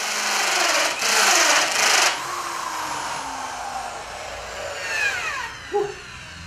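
Corded electric drill driving a hole saw through hardwood pallet wood. It cuts loudly for about two seconds, then is released and spins down with a falling whine. A short knock follows near the end.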